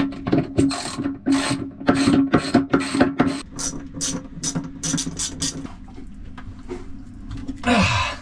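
Hand tool worked in quick repeated strokes on a seized through-hull skin fitting to free it, about two strokes a second, thinning out after about five seconds.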